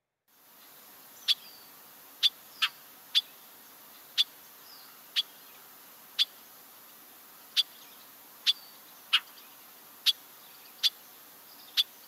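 Bobolink call notes: about thirteen short, sharp single calls, roughly one a second at uneven spacing, over a faint recording hiss.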